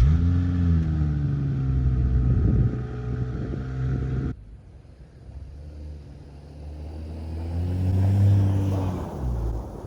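BMW 135i's twin-turbo inline-six engine pulling under acceleration: the revs rise, then hold, and the sound cuts off suddenly a little over four seconds in. A second pull follows, rising to a peak about eight seconds in and then falling away.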